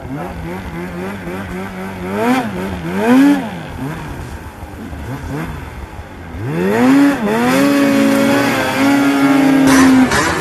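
Snowmobile engine revving up and down in short bursts, then climbing about two-thirds of the way in and holding at high revs for a few seconds.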